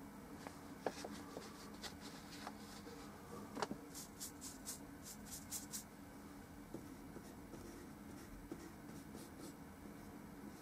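Paintbrush strokes on a small oil painting: soft scratchy swishes, quickest in a run of about eight strokes a few seconds in, with a couple of light ticks earlier. A faint steady hum lies underneath.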